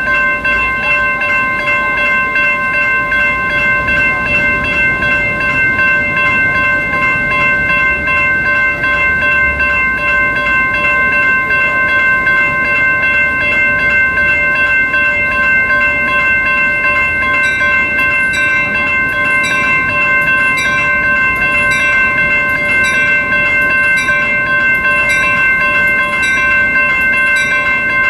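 Railroad grade-crossing warning bell ringing continuously while the crossing is activated, over a low rumble. About two-thirds of the way through, a second, higher ringing joins at about one and a half strokes a second.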